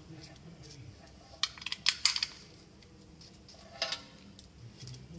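Metal parts clinking: a quick cluster of sharp clinks about a second and a half in, then one more a little before four seconds.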